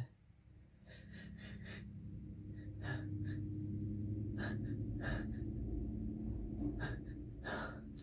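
A person's sneeze buildup: a string of sharp, hitching gasps of breath over a low voiced strain, growing louder after the first couple of seconds. A brief sharp click comes right at the start.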